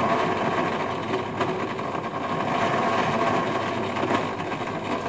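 Electric frozen-bowl ice cream maker running with a steady hum, its motor turning the paddle as the blended mixture is poured in.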